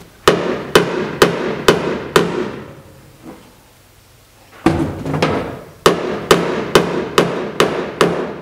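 Body hammer's pick end tapping the steel sheet metal of a 1966 Ford Mustang, short ringing metallic strikes about two a second: a run of five, a pause of about two seconds, then another run. It is knocking down the high spot beside a body line while a stud lever pulls up on welded studs, pushing the metal in and up at once.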